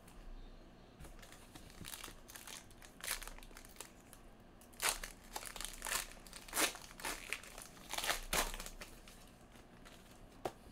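Trading-card pack wrapper crinkling and crackling in irregular bursts as it is handled and crumpled, busiest in the middle.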